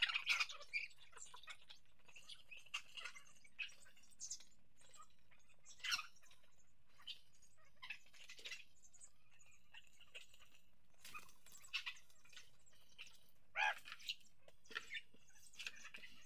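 Backyard chickens feeding from scattered feed, giving short, scattered chirps and clucks, a few louder than the rest.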